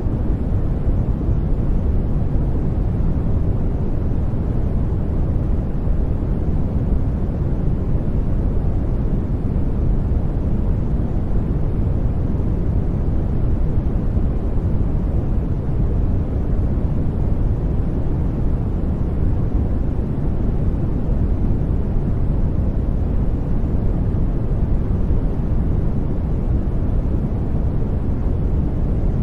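Steady generated noise sold as white noise, weighted toward the low end so it sounds like a deep, even rush rather than a bright hiss. It does not change at all.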